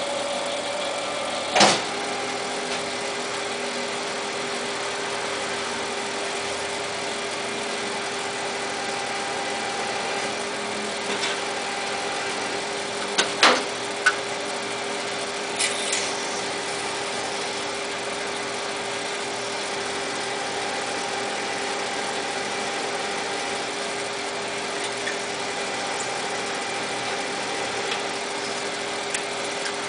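Small Jet TL-25 turret lathe running with a steady mechanical hum. Sharp metallic clanks sound once about two seconds in and in a cluster about halfway through, as the turret and feed levers are worked.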